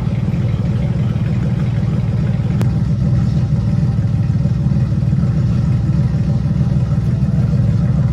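Car engine idling steadily with a deep, even rumble.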